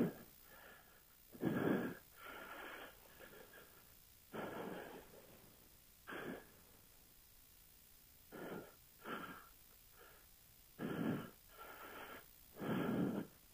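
A person breathing hard close to a headset microphone: short, irregular breaths about every one to two seconds, in and out with effort.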